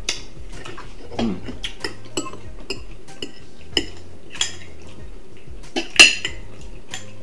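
Cutlery clinking and scraping against plates and a plastic container as food is spooned out, in a string of short separate clinks. A sharp clink about six seconds in is the loudest.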